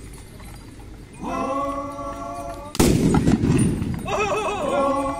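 A group of men's voices in a Phom Naga war-dance chant, holding long drawn-out notes. About three seconds in a sudden loud burst cuts in, followed by a warbling, wavering call and another held note.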